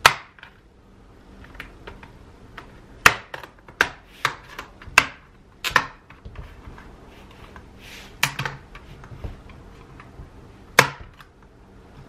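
Palm rest of an HP Chromebook 11 G3 being pried off its bottom case. Its plastic snap clips pop loose one at a time in about ten sharp, irregular clicks, some close together, others several seconds apart.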